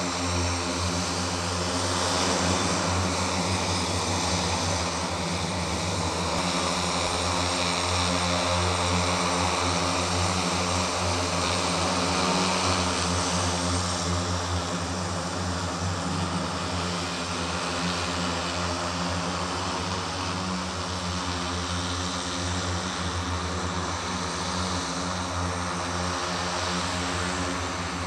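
The electric motors and propellers of a Hexa multirotor VTOL aircraft, 18 in all, hovering and flying low. They make a steady drone of many overlapping tones with a rushing hiss, easing off slightly in the second half as the aircraft drifts farther away.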